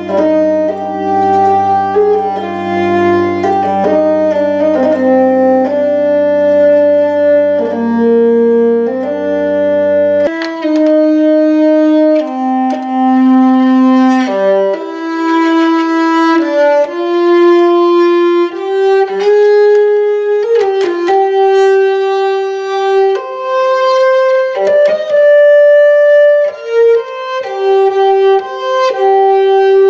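Amplified hurdy-gurdy playing a melody on the keyed strings over steady low drones. About ten seconds in, the drones drop out and the melody carries on alone.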